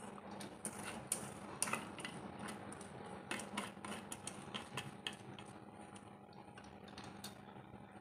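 Soaked urad dal scraped by hand from a stainless steel colander into a steel mixer jar: faint, irregular small ticks and clicks of damp lentils and metal. The clicks thin out after about five seconds.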